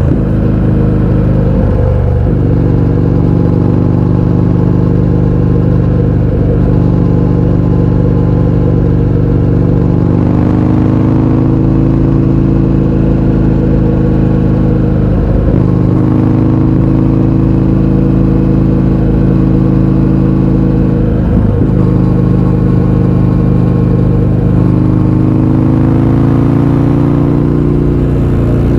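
Indian FTR 1200's V-twin engine through an Akrapovič exhaust with the baffles removed, running at fairly steady revs. Its pitch dips briefly a few times and climbs a little twice.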